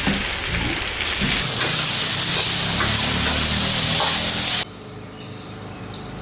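Chopped vegetables and chillies sizzling in hot oil as they are stir-fried with a ladle in a steel wok. The sizzle gets louder and brighter about a second and a half in, then cuts off abruptly a little before the end, leaving only a faint steady background.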